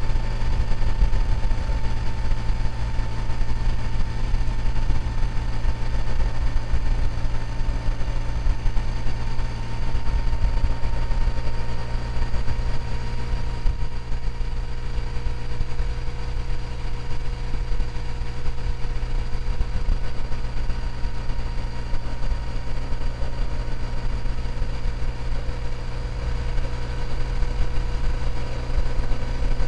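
Motorcycle engine running steadily at cruising speed, with steady wind and road noise.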